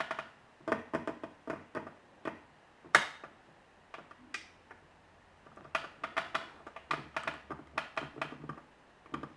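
Small hard objects being handled on a desk: light clicks and taps in two runs, with one sharper click about three seconds in.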